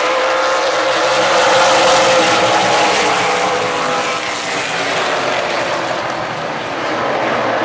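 A pack of stock cars racing past under power, many engines running together. The sound swells about two seconds in as the field passes, then eases off a little.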